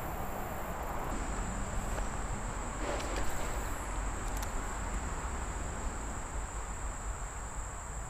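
Insects trilling steadily on one high, even pitch, coming in about a second in, over a soft steady hiss, with a brief rustle about three seconds in.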